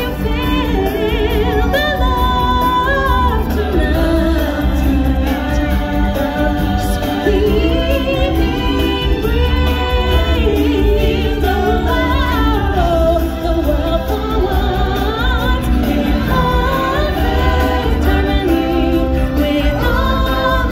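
Live stage-musical music: singers and a choir of voices singing over a loud backing band with a steady heavy bass, the voices sliding up and down in long melodic lines.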